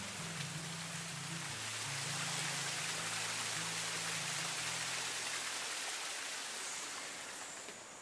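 Small rainforest waterfall cascading over rock ledges: a steady rush of splashing water, with low background music notes underneath that fade out about two-thirds of the way in.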